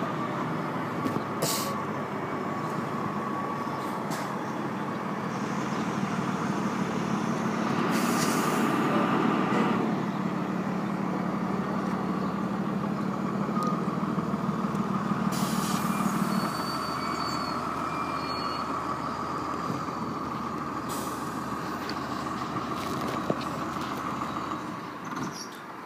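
Fire engine and ambulance diesel engines idling steadily. The hum swells for about ten seconds and then eases, with a few short bursts of hiss along the way.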